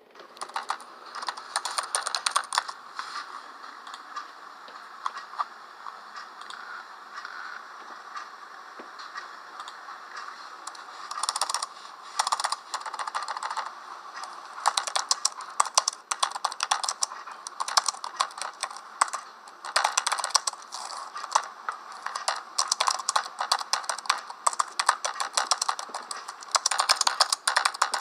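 Typing on a computer keyboard: rapid key clicks in flurries. The typing thins out for several seconds after the opening burst, then comes back in dense runs of keystrokes.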